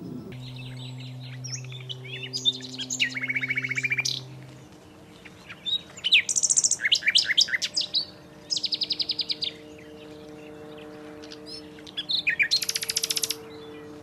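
Common nightingale singing: four phrases of rapid repeated notes and trills, with short pauses between them.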